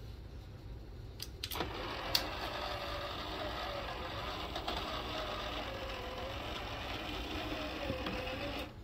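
Small DC gear motor of a DIY cable-lift chicken coop door running, winding its spool to move the door: a few clicks as it switches on, then a steady whirr with a slightly wavering whine for about seven seconds, which cuts off suddenly near the end as the limit switch stops the motor.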